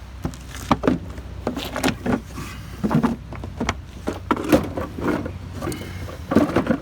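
Irregular knocks, clanks and scrapes of metal parts being handled and fitted during gasifier repair work, over a low steady hum.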